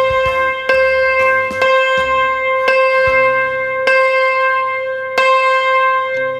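Yangqin struck repeatedly on a single note with its hammers, about once a second, each strike ringing on with a buzz in it. The buzz could come from neighbouring strings that have gone too loose and vibrate against each other.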